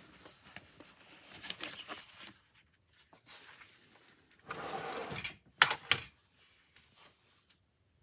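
Handling of a small plastic wireless number pad: scattered light clicks, a short rustle about halfway through, then a few sharp clicks, typical of the keys or case being pressed.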